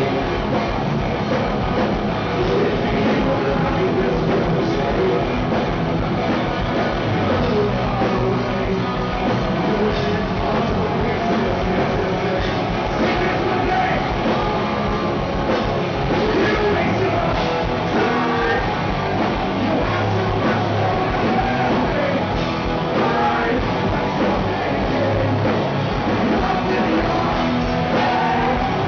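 Live hard rock band playing loud and steadily: distorted electric guitars, drums and sung lead vocals, heard from the audience.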